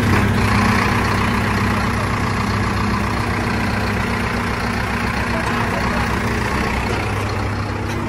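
Backhoe loader's diesel engine idling steadily at close range, a low, even hum.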